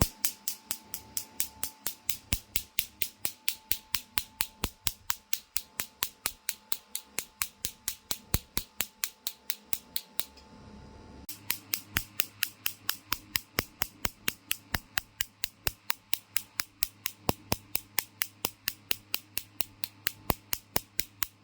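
PL682 machine firing in a steady train of sharp clicks, about four a second, with a brief pause about ten seconds in before the clicking resumes. A faint steady tone runs under the clicks in the first half.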